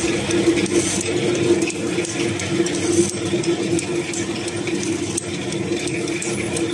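Rotary bottle-capping machine of a water filling line running at speed: a steady hum with fast, continuous clicking and rattling from the turret and its capping heads.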